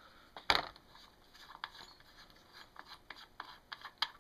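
Hands handling the cylinder head of a 1979 Honda ATC110 engine: one sharp metal knock about half a second in, then scattered light clicks and short scrapes.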